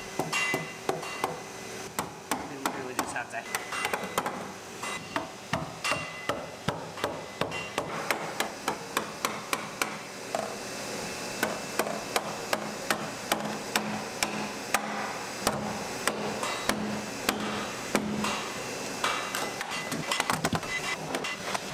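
Mallet striking the handle of a putty knife wedged under a large 3D-printed carbon-fibre ABS longboard deck, driving the blade under to free the print from the printer bed. Repeated sharp taps, about two a second.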